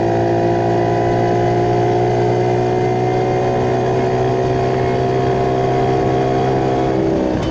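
Motorcycle engine running steadily at cruising speed, a constant, even note. Near the end the pitch dips and the steady note breaks up.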